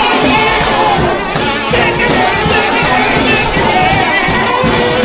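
Trombone shout band playing a gospel tune in full, wavering horn lines over a steady drum and cymbal beat.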